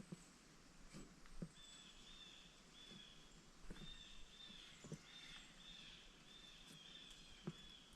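Near silence outdoors, with faint, high chirping notes repeating one after another for most of the time, and a few soft knocks.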